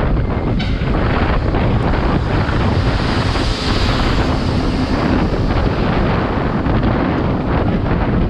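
Steady wind rushing over the microphone of a camera on a road bike moving at about 40 km/h.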